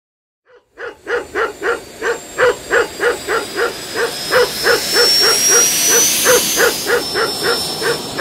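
Outro sound over the end card: a loud, even run of short pitched calls, about three or four a second, starting about half a second in, with a thin high tone slowly rising through the middle.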